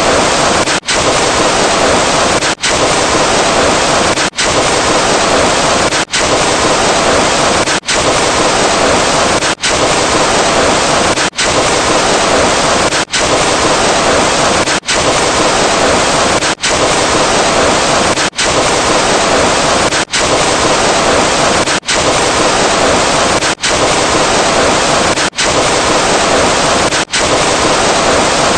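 A loud, steady rushing noise sound effect, with no tone or pitch, played over and over in segments of about 1.75 seconds, each ending in a brief drop-out before the next begins.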